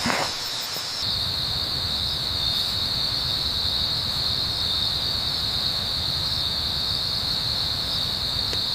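A steady, high-pitched chorus of crickets over a low, even rumble of wind. About a second in, the chorus shifts slightly lower in pitch and the rumble grows a little.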